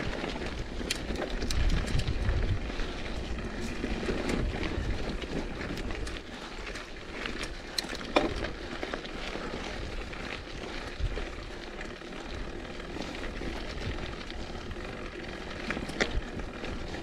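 Mountain bike riding on a dirt singletrack: wind buffeting the microphone, heavy for about the first six seconds and then easing, with scattered sharp clicks and rattles from the bike.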